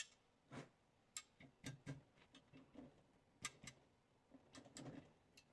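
Faint, irregular metallic clicks and small knocks of a hand tool working a heated, oiled broken bolt in an engine block, trying to work it loose.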